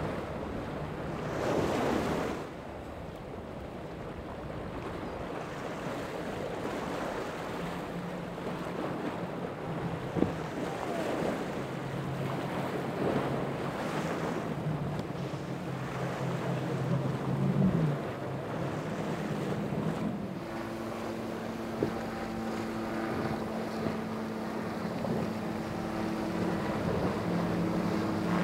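Motorboat engines running on the water over the wash of waves, with wind on the microphone. A low engine drone holds through the middle, and a higher engine hum takes over about two-thirds of the way through.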